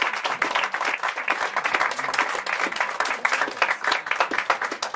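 A small audience applauding at the end of a live song: dense, steady clapping from many hands.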